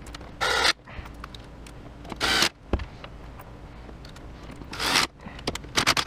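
Hands working with wiring and parts: three short raspy bursts about two seconds apart, then a quick cluster of small clicks and knocks near the end.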